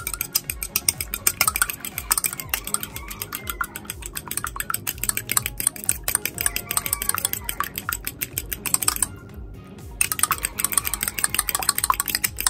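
Metal fork beating raw eggs in a ceramic bowl: rapid, continuous clinking and tapping of the fork against the bowl. The beating pauses for about a second, nine seconds in, then resumes. Quiet music plays underneath.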